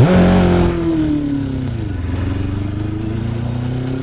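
Motor vehicle engine running, its pitch dropping over the first two seconds and then climbing again, as if it slows and then speeds up. It follows a short loud rush of noise at the very start.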